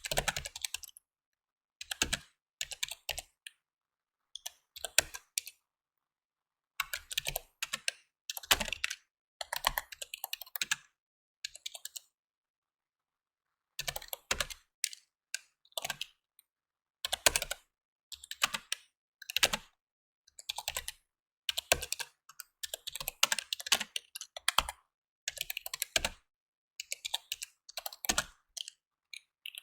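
Typing on a computer keyboard: runs of rapid keystrokes broken by short pauses, the longest about two seconds around the middle.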